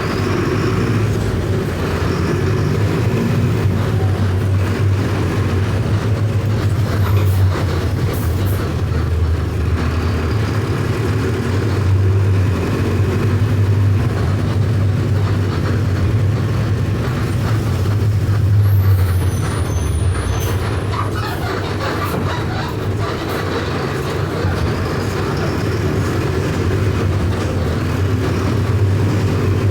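Mercedes-Benz OF 1519 bus's four-cylinder electronic diesel engine running under way, a steady low hum that swells and eases several times as the bus pulls and backs off.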